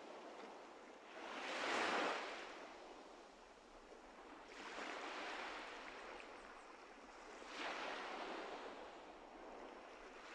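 Ocean surf: waves washing in and drawing back, a swell about every three seconds.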